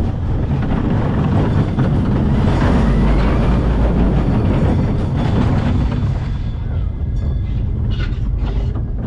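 Vekoma Roller Skater junior coaster train running on its steel track: a steady low rumble of wheels. The rumble thins out after about six seconds as the train slows toward the station, with a few sharp clanks near the end.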